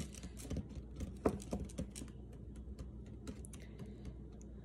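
A spoon stirring powdered drink mix into yogurt in a small cup: a quick, irregular run of small clicks and taps of the spoon against the container, strongest just over a second in.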